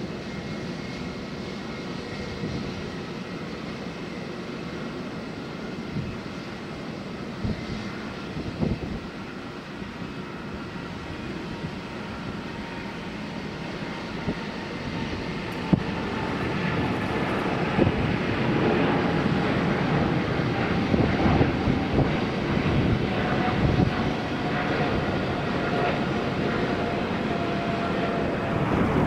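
Boeing 777-300ER's twin GE90-115B turbofans on takeoff: a steady jet roar with a high whine that grows louder from about halfway through, its tones sliding slowly lower. Wind gusts buffet the microphone.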